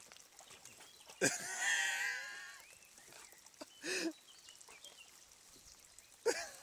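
Border Collie swimming and snapping at water drops while vocalising: a wavering whining call about a second in, then two short yelps, one near the middle and one near the end.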